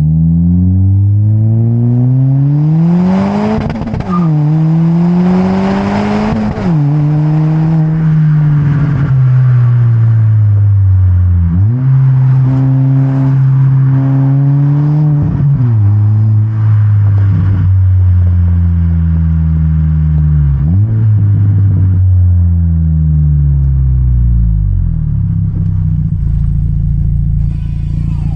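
Honda Civic Si's turbocharged four-cylinder through a Megan Racing N1 aftermarket exhaust, accelerating hard with the revs climbing and dropping sharply at two upshifts. It then slows, the revs jumping up briefly at each of three downshifts, and settles to a steady idle near the end.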